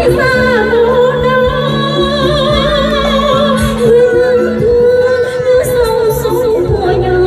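A woman singing through a microphone over instrumental backing music, holding long notes with vibrato.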